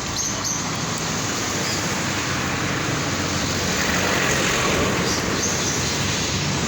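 Steady road noise: a vehicle engine's low hum under a continuous rushing noise.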